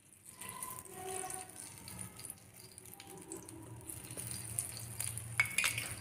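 Faint hiss and light crackle of refined oil heating in a small steel tadka ladle over a gas burner flame, with a few sharp clicks about five and a half seconds in.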